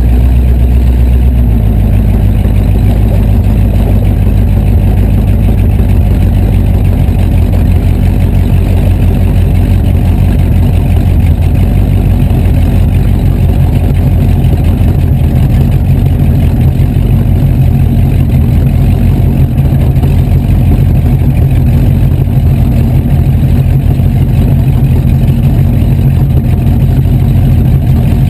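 Rat rod's engine running at low speed, heard loud from inside the cab as the car rolls along. Its low note shifts about a second and a half in, then holds steady.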